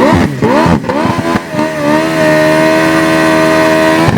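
Ford Lightning pickup's V8 engine revved in several quick blips, then held at a steady raised rpm for about two seconds before dropping back. A loud exhaust.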